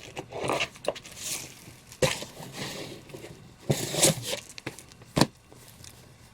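Comic books being handled: a few seconds of rustling and crinkling, with two sharp knocks, about two seconds in and near the end, as issues are set down.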